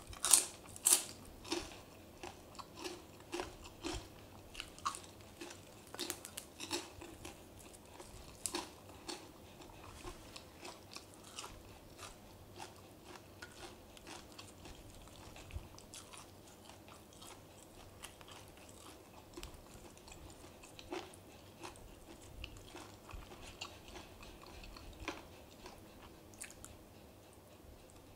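Close-up eating sounds: a person biting and chewing crunchy food, with sharp crunches that are densest over the first dozen seconds and come only now and then after that.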